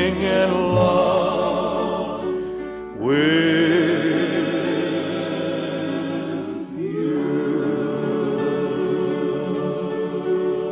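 Music with a choir singing long held chords. New chords come in about three seconds in and again about seven seconds in.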